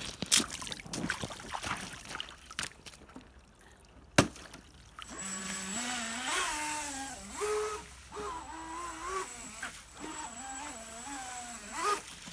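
Clicks and scraping from handling close to the microphone, with one sharp click about four seconds in. Then a small jetboat's engine comes up through shallow water, its revs rising and falling in steps over the rush of water.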